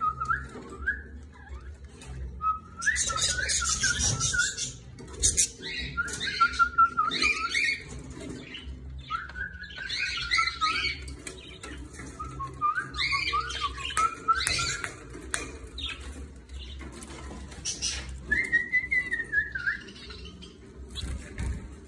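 Budgerigars singing: warbling, whistled phrases that glide up and down, mixed with scratchy chirps and chatter. The song comes in bursts of a few seconds with short pauses between them.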